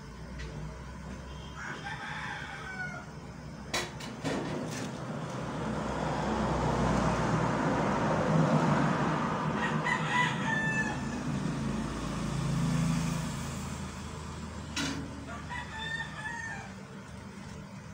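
Rooster crowing three times in the background. A broad rushing noise swells and fades in the middle, with a few sharp knocks.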